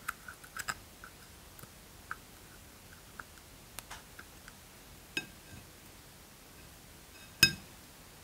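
Small plastic spatula scraping pink lip balm out of its plastic case: scattered soft scrapes and light clicks, with one sharp, much louder knock near the end.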